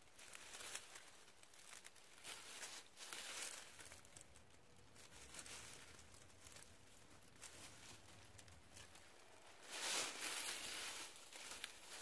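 Faint rustling and crinkling of dry fallen leaves as wild butterbur greens are picked by hand, in short scattered bursts, the loudest about ten seconds in.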